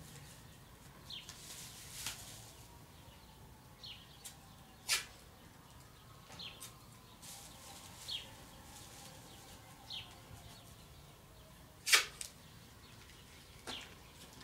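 Masking tape being pulled off the roll and pressed down, with plastic masking film crinkling. There are short rasping stretches and a few sharp snaps, the loudest near the end.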